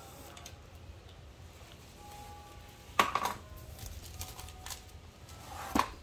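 Plastic shrink wrap crinkling and tearing as it is pulled off a keyboard box, with a sharp crackle about three seconds in and another near the end.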